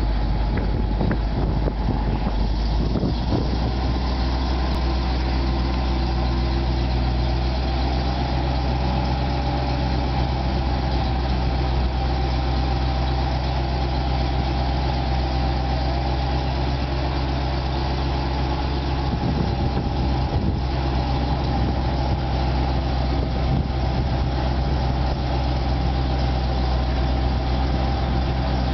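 Engine on an aerial-boom truck running steadily, powering the Hi-Ranger boom's hydraulics as the boom lifts. Its note shifts slightly about two seconds in and again a little past the middle.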